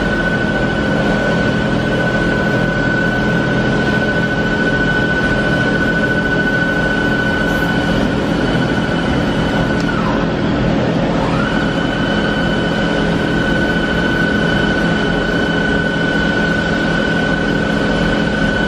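Spindle of a Doosan DBC130II CNC horizontal boring mill running with a high steady whine over a steady low machine hum. About ten seconds in the whine winds down, then spins back up a second later.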